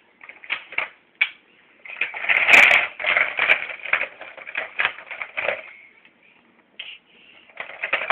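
Toy blocks clattering and knocking together in a quick, irregular run of clicks, with a denser, louder clatter about two and a half seconds in.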